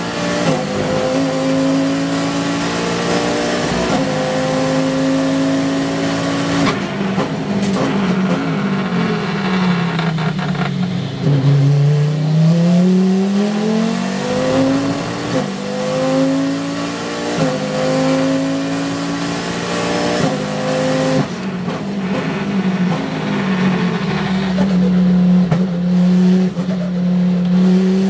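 Onboard sound of a KTM X-Bow GTX race car's turbocharged Audi five-cylinder engine, driven hard. The pitch climbs under throttle and drops sharply at each gear change. It falls away through downshifts under braking from about seven to eleven seconds in, then climbs again.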